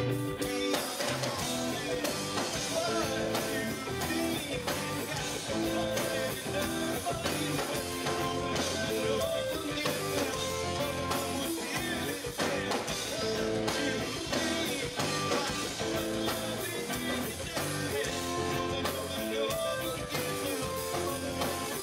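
Live rock band playing: electric guitar on a Fender Stratocaster with an overdriven tone from a Boss SD-1 overdrive pedal, through Marshall amplifiers, with drums and some singing.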